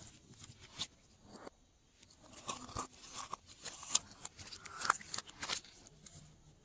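Glossy slime being worked by hand, giving irregular sticky clicks and pops, the sharpest about 4 and 5 seconds in.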